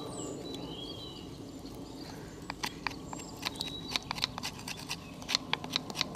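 A knife scraping the bark off a green hazel stick on a wooden stump: a run of sharp, irregular clicks and scrapes, several a second, starting about two seconds in.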